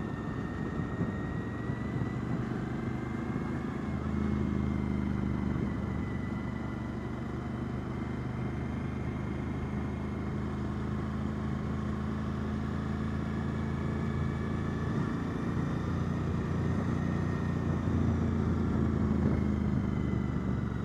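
2014 Suzuki V-Strom 1000's V-twin engine running steadily while riding, over a constant rush of wind and road noise. The engine grows a little louder about four seconds in and again near the end.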